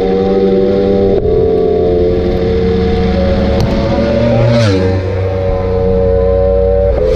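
BMW S1000RR inline-four engine at full throttle, heard from an onboard camera, with wind rush. The engine note drops sharply at each upshift: about a second in, near the middle, and near the end.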